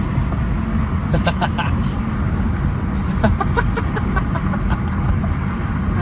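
Steady low road and engine rumble heard from inside a moving car's cabin.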